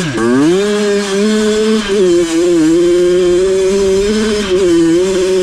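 An off-road vehicle's engine running hard at high revs. The pitch drops sharply at the start, climbs back within the first second, then holds with small wavers.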